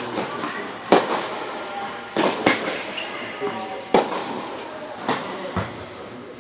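Tennis ball struck by rackets and bouncing on a hard court during a rally: six sharp pops, roughly a second apart, in a large indoor court hall.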